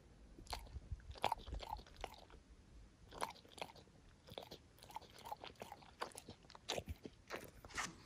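A dog lapping water from a clear plastic container: a run of short, wet, irregularly spaced clicks and splashes.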